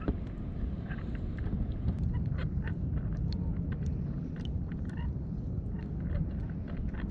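Small water splashes and drips ticking against a kayak hull as it moves over calm sea, irregular and scattered, over a steady low rumble of wind on the microphone.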